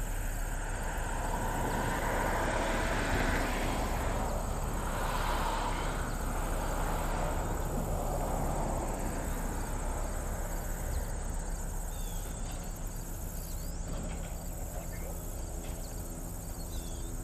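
Steady, pulsing chirring of insects such as crickets on a summer day, over a broad low rumble.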